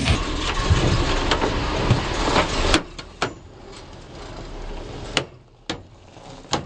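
Off-road truck's drivetrain running hard under load, then a sharp crack about three seconds in after which the noise drops away, leaving a few scattered knocks and clicks. It is the sound of an axle breaking: U-joint and axle shaft giving way.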